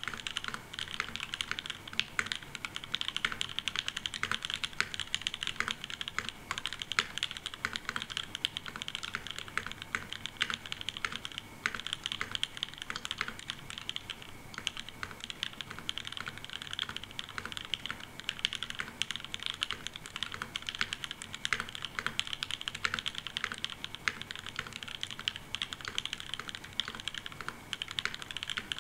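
Keyboard ASMR: a mechanical keyboard typed on fast and without pause, a dense clatter of key strokes.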